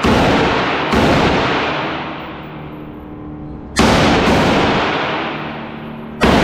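Rifle fired shot by shot at an irregular pace, five shots in all. Each crack is loud and rings out in a long echo off the hard walls of the indoor range.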